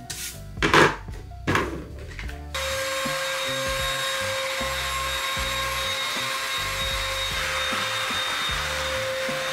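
Cordless stick vacuum cleaner switching on about two and a half seconds in and running steadily with a high whine, after a few short rubbing sounds. Background music with a beat plays underneath.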